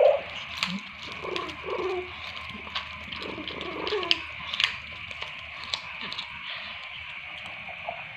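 Orange domestic cat making a few short, falling mews or grunts in the first half, among scattered faint clicks.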